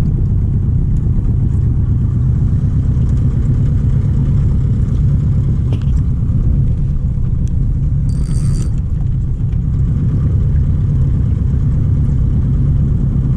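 Boat's motor running steadily at trolling speed, a low rumble, with a brief high-pitched sound about eight seconds in.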